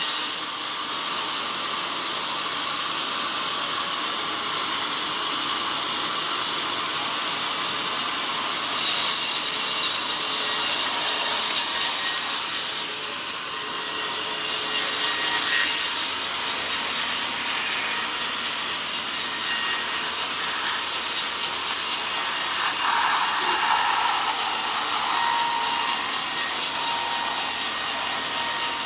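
Sawmill band saw cutting through a log: a steady, high-pitched sawing noise that gets louder about nine seconds in, dips briefly near thirteen seconds and picks back up.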